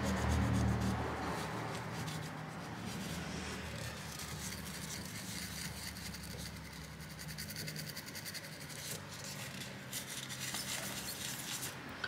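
Toothbrush bristles scrubbing dried thermal paste off a graphics card's GPU die wet with isopropyl alcohol, a soft repeated rubbing and scratching.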